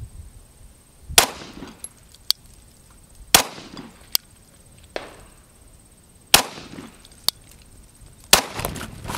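Glock 17 9 mm pistol firing four single shots a couple of seconds apart, each trailing off briefly, with fainter sharp clicks between the shots.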